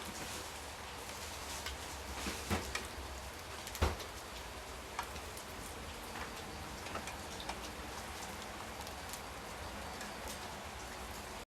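Steady rain falling, with scattered drops tapping on a surface; a sharper drip lands about four seconds in.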